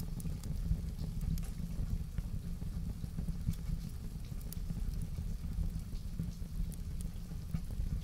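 Wood fire crackling in a fireplace, irregular sharp pops and ticks over a steady low rumble, mixed with falling rain.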